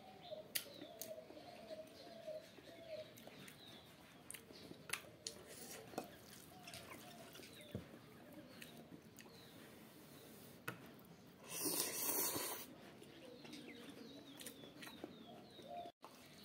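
Eating at the table: a fork clicking and scraping against the noodle bowl, with chewing and mouth sounds of instant noodles. About twelve seconds in there is a louder rush of noise lasting about a second.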